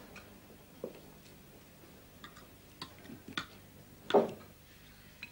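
A few irregular clinks and knocks of kitchen crockery and utensils being handled, with one louder clunk about four seconds in.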